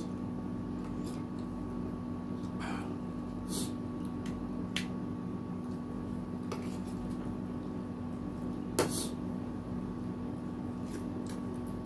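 Spoons clicking against plates and a bowl and soft eating sounds of noodle soup, a handful of times, the loudest just before the last third. Underneath runs the steady hum of a wall air conditioner.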